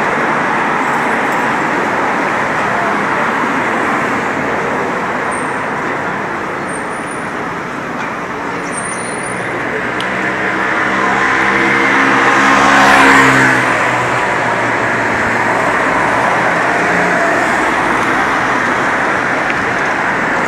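Steady city street traffic noise, with one car passing close by about two-thirds of the way through, its engine and tyre sound building to a peak and then fading quickly.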